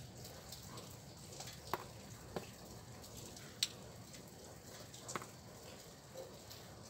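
Faint rain with a few sharp drips tapping close by, the loudest a little past halfway.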